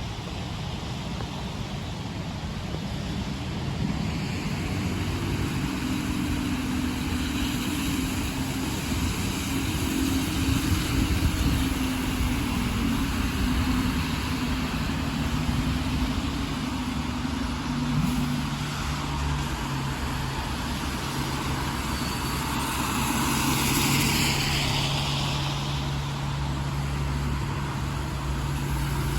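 Bus engines running in street traffic on a wet road, a steady engine hum over continuous hiss. The hum drops in pitch about two-thirds of the way through, and a louder hiss swells and fades shortly after.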